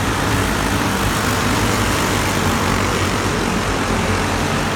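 Racing go-kart engines running steadily at speed, a loud, continuous drone.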